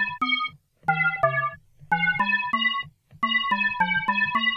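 Short synthesizer notes from a Halion 6 sampler instrument built from a recorded Retrologue synth tone, played one after another at changing pitches in short runs of about three to four notes a second, with brief gaps between the runs.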